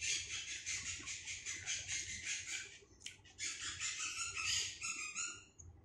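A parrot chattering in rapid high chirps, pausing briefly about halfway, then a few squawking calls that fall in pitch near the end.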